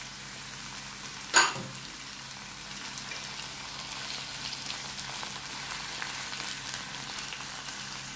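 Cauliflower and fried potato cubes sizzling steadily in a frying pan under a freshly poured tomato mixture. One sharp knock comes about a second and a half in.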